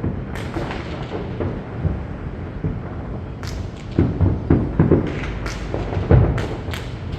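Aerial fireworks going off: a run of deep booms with sharp cracks among them, coming thickest in the second half.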